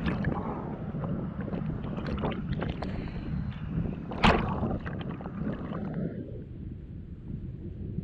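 Wind buffeting the microphone over sea water sloshing and splashing at the shoreline, with a sharp loud hit about four seconds in; the splashing thins out after about six seconds.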